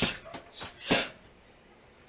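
Strikes landing on Muay Thai pads in a quick series: three sharp slaps within about a second, with a lighter one between the first two.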